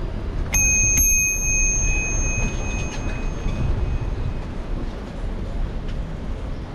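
Bicycle bell rung twice, about half a second apart, each ding ringing on and fading over a couple of seconds, over a low rumble of wind and street noise.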